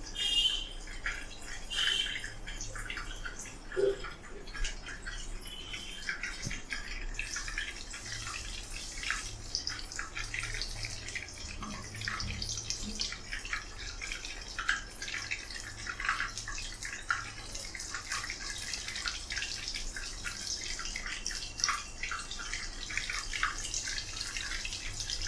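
Coated mutton kababs deep-frying in hot oil: a steady sizzle with dense crackling and popping.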